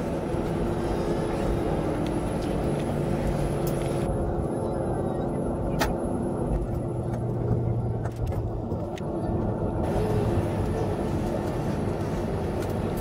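Steady rumble of a jet airliner's engines and cabin air at taxi power, heard inside the passenger cabin as the plane taxis after landing. A single sharp click about six seconds in.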